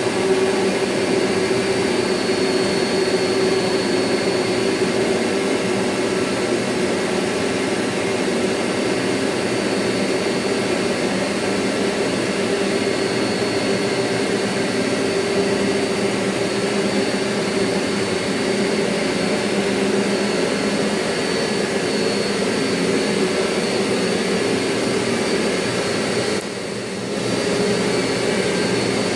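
Steady loud noise of running machinery, the kind of drone found on a CNC machining shop floor, with a steady hum and a high whine over it. The sound drops briefly for about a second near the end, then resumes.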